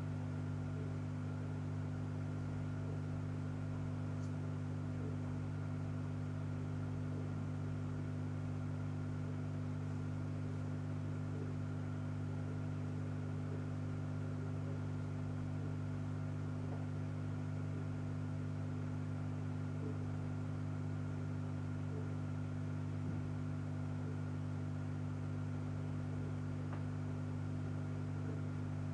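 Steady low hum with a faint hiss underneath, unchanging throughout, typical of running aquarium equipment such as a pump.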